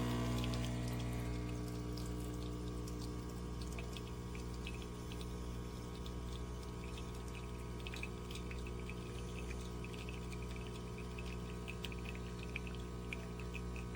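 De'Longhi Dedica Duo espresso machine's pump humming steadily while coffee runs out, with small scattered crackling drips and spatters over the hum. The hum drops a little in level about a second in.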